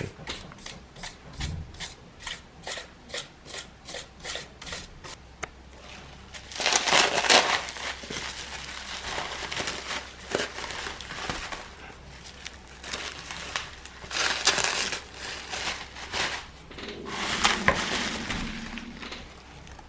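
A brush scrubbing over the iPad's frame to clean it. The first five seconds are quick, even strokes, about three a second, followed by several longer, louder scrubbing passes.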